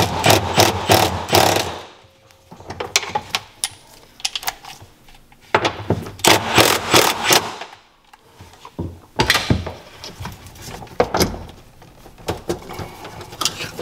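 A ratchet working the bolts of a jet ski's engine mount loose, in several bursts of rapid clicking with short pauses between.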